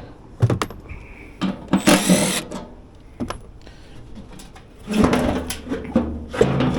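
A handheld power tool runs in short bursts, with metal clicks and clanks, as it works a blower wheel loose from its motor shaft.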